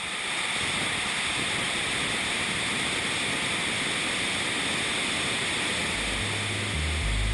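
Twin-engine fighter jet at full afterburner during its takeoff roll, a steady, unbroken roar. Deep bass music notes come in near the end.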